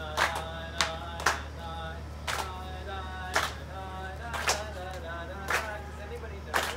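Voices singing a Jewish wedding melody, kept in time by hand claps about once a second.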